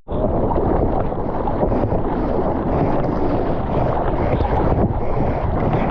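Steady rush of wind buffeting the camera microphone, mixed with the wash of ocean surf.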